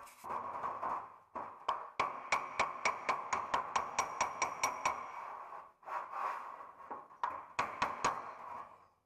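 Quick, evenly spaced metal taps on the sheet steel of a car bonnet, about four or five a second, in two runs over a steady hissing noise.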